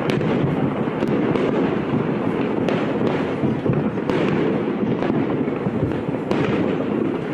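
Fireworks display in full barrage: many overlapping bangs merging into a continuous rumble, with sharper single reports standing out every second or so.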